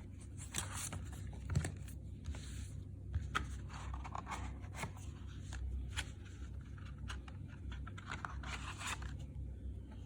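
CD packaging being handled: irregular rustling and scraping of paper and card, with a few sharp clicks.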